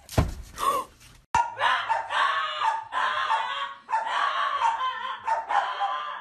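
A thump just after the start. Then a small white fluffy dog vocalizes in a series of drawn-out, howling calls, each about a second long.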